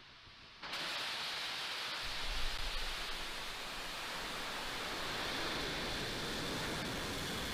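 Falcon 9 rocket's nine Merlin engines at liftoff: a loud, steady rushing noise that starts suddenly under a second in. A deep rumble joins about two seconds in, crackling most strongly just after.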